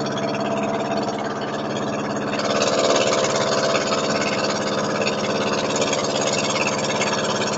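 An outrigger boat's engine running steadily under way, with the rush of water and spray along the hull, which grows louder about two seconds in.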